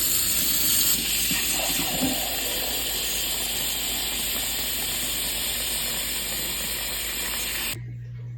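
Steady, loud hissing noise that cuts off suddenly near the end.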